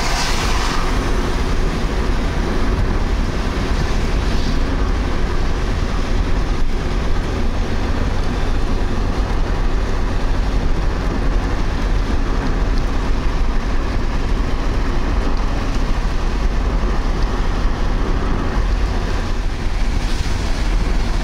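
Road noise heard inside a car driving on a wet highway in the rain: a steady rush of tyres on wet pavement along with engine and wind noise. Near the end there is a brief louder swish as an oncoming truck passes.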